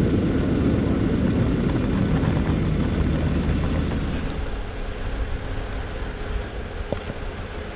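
Loud, steady low rumble of a running vehicle engine, which drops away about four seconds in to quieter outdoor background noise.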